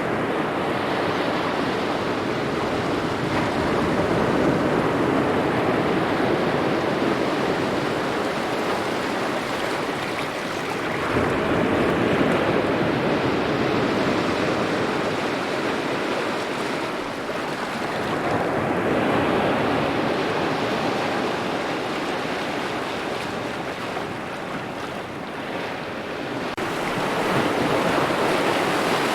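Small waves lapping on a shore, a continuous wash of water that swells and eases every several seconds.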